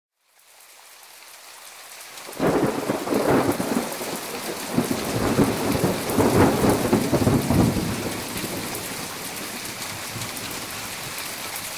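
Steady rain hiss, then about two seconds in a sudden crack of thunder that rumbles in several waves for about five seconds before dying back under the rain.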